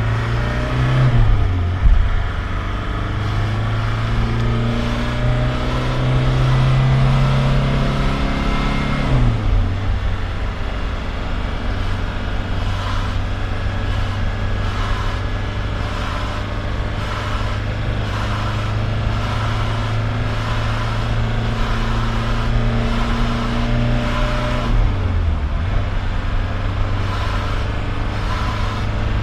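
VW T3's JX 1.6-litre four-cylinder turbodiesel running: revs rise about a second in and are held up until about nine seconds, then drop back to a steady idle, with a smaller rise and fall later on. Over the idle in the second half a faint tick repeats about once a second; the owner takes the engine's sound for an odd, unexplained noise.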